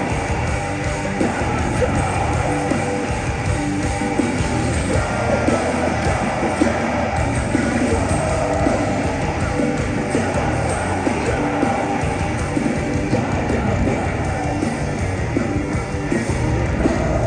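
Metalcore band playing live at a steady high volume, with heavily distorted guitars, drums and shouted vocals.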